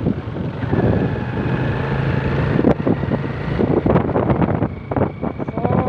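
A motorcycle's engine running while riding, with wind buffeting the microphone.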